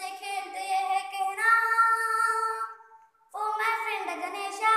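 A young boy singing solo, holding one long note for over a second, breaking off for a moment about three seconds in, then singing on.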